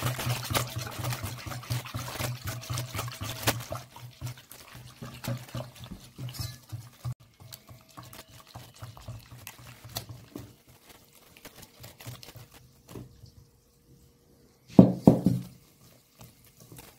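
Water being poured from a cup into flour while a plastic balloon whisk beats the mix in a stainless steel bowl: quick, rapid stirring and scraping strokes that thin out after about ten seconds. One brief louder sound near the end.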